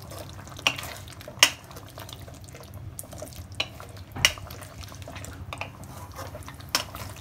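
Spatula stirring thick gravy in a wok, with about five sharp knocks of the spatula against the pan.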